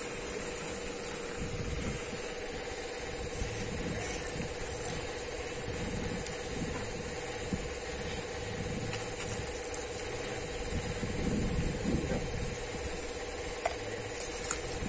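Old air compressor running steadily, blowing air down one hose into a well so that water is lifted out through another (air-lift flushing). It makes a constant-pitched hum over an irregular low rumble.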